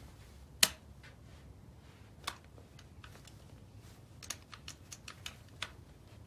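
Scattered metallic clicks and taps from a Rock River Arms .308 tactical rifle as its magazine is handled and checked for seating. There is one sharper click about half a second in, another a little past two seconds, and a quick run of smaller clicks in the second half.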